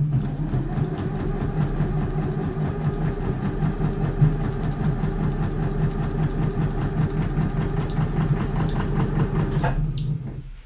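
Electric sewing machine stitching at a steady speed through a paper practice sheet: the motor hums under a fast, even ticking of the needle going up and down. It stops near the end.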